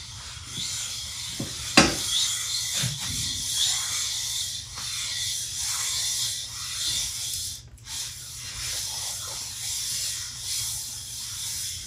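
Face of a magnetic lathe chuck being lapped by hand on a lapping plate with 400-grit abrasive in cutting oil: a continuous gritty rubbing that swells and fades with the strokes. There is a sharp click about two seconds in and a brief break near eight seconds.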